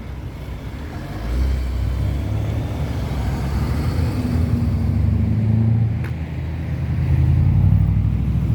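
Heavy truck engine running with a deep rumble, getting louder about a second in, easing off briefly and rising again near the end.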